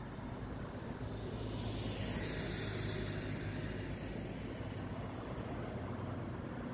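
Steady low engine rumble in the distance, with a rushing noise that swells about two to three seconds in and then eases.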